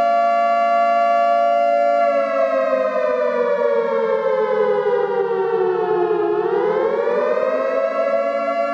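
Loud siren sounding a steady chord of pitched tones. About two seconds in its pitch slides slowly down, bottoms out after about six seconds, then climbs back to the steady pitch.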